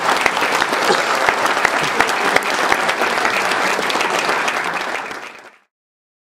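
Audience applauding, many hands clapping at once, fading out about five seconds in.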